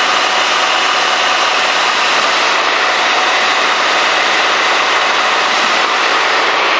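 Cessna 210D's six-cylinder Continental engine and propeller droning steadily in flight, heard inside the cabin.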